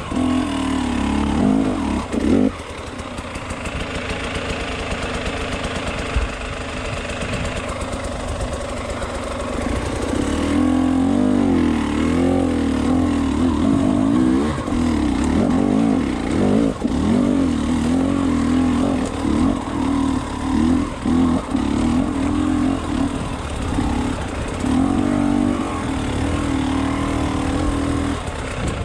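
Enduro motorcycle engine pulling hard uphill. In the second half the throttle opens and closes in repeated short bursts, the engine note rising and falling.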